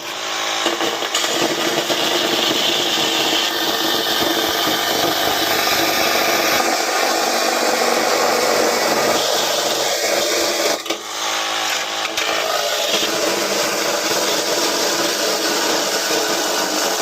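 Power saw with a Diablo blade cutting through a tankless water heater, running loud and steady, with short breaks in the cut about 11 and 12 seconds in.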